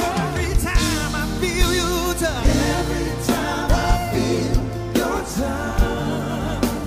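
Live gospel-style band performance: several voices singing in harmony over bass, drums and keyboard. The bass and drums come in right at the start, with regular drum hits throughout.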